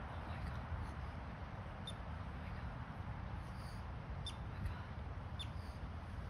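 A few short, sharp, high animal squeaks, spaced a second or two apart, over a steady low rumble.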